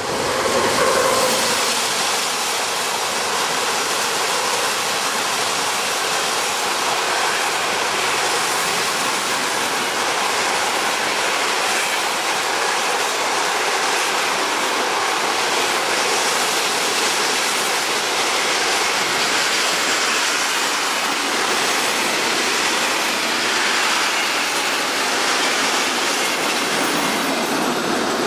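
A passenger train of double-deck coaches hauled by a locomotive passing close at speed. The locomotive goes by with a surge about a second in, then the wheels on the rails give a steady rush as the coaches pass, fading near the end.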